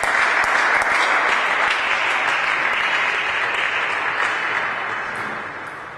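Spectators applauding a won point. The applause starts suddenly, holds steady, then fades out over the last couple of seconds.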